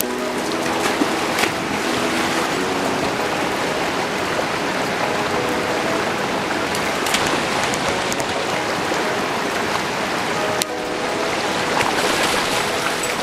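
A steady rushing hiss of water with a few sharp ticks, under background music with held notes.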